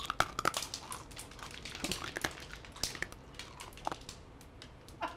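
A mouthful of hard white tablets being crunched and chewed: irregular crisp cracks.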